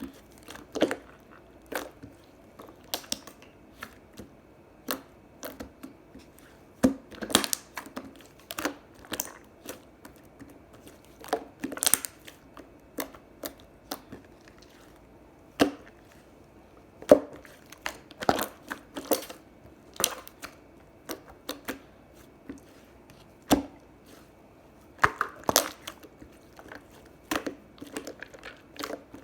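Hands playing with a soft pudding-textured slime: irregular sticky clicks and squishes as it is pressed, stretched and folded.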